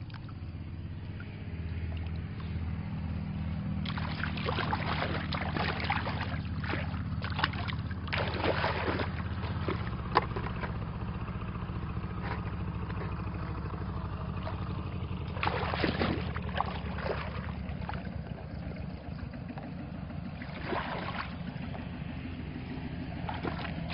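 Shallow muddy water splashing and sloshing in several bursts as a bamboo plunge basket is pushed into the water and hands grope in it, over a steady low motor-like hum.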